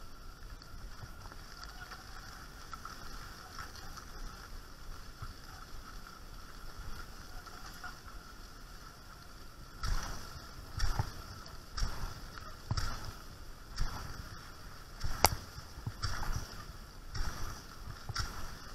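Cross-country skis sliding steadily over a snowy trail; from about ten seconds in, regular strokes roughly once a second as the skier pushes with ski poles while being towed by a dog.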